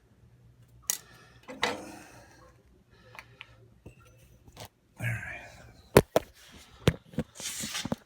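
Metal tools and furnace parts clicking and clanking as they are handled while the blower capacitor is taken out. The sharp knocks are scattered, with the loudest about six seconds in, and a rustle of handling comes near the end.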